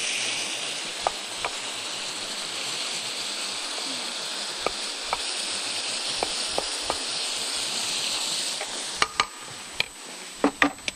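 Chicken frying in a pan with a steady sizzle, broken by a few light clicks. About nine seconds in the sizzle drops away, and several sharper clinks follow.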